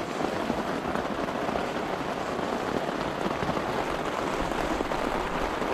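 Heavy rain falling steadily, a dense hiss of many drops striking a surface.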